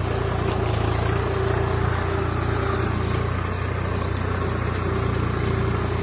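Swaraj 744FE tractor's three-cylinder diesel engine running steadily under load while it drags a spring-tine cultivator through the soil, with scattered short clicks from the cultivator's metal frame and chain.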